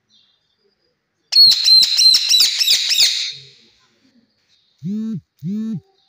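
Rose-ringed parakeet screeching: a quick run of loud, high, repeated calls, about four a second, lasting about two seconds. Two short, lower-pitched sounds follow near the end.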